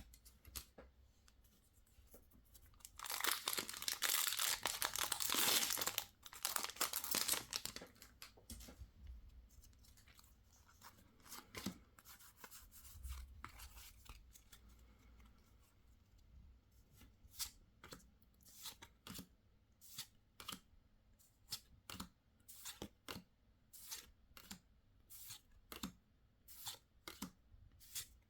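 Plastic packaging of a Pokémon card collection being torn open for several seconds, followed later by a run of sharp clicks, one or two a second, as cards and packaging are handled.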